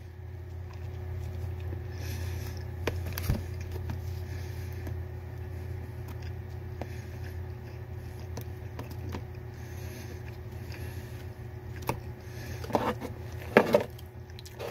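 A person chewing a mouthful of fried chicken sandwich, with quiet mouth noises over a steady low hum. There are two short, louder sounds near the end.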